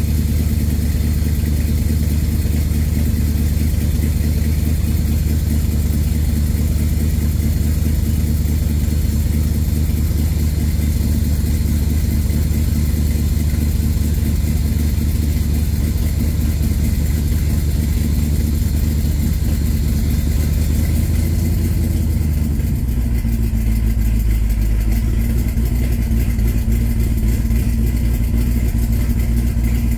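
A Holley Sniper EFI–equipped V8 in a Factory Five Cobra roadster idling steadily. About two-thirds of the way in, the idle settles to a lower note.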